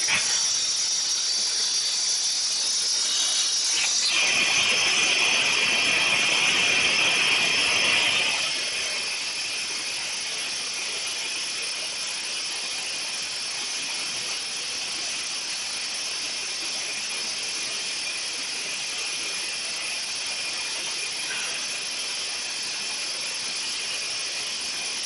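Steady high-pitched hiss and whine of running press-shop machinery, a little louder for a few seconds near the start before settling to an even level.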